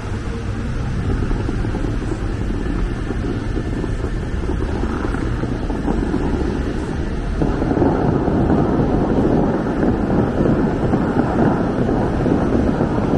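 Rushing, spraying water from fountain jets, becoming louder about seven and a half seconds in, with a low wind rumble on the microphone.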